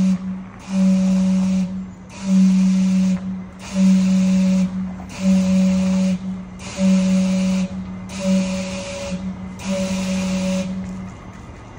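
Gastown Steam Clock's steam whistles sounding the hour: a series of evenly spaced, same-pitched low whistle blasts with a hiss of steam, about one every second and a half, stopping near the end.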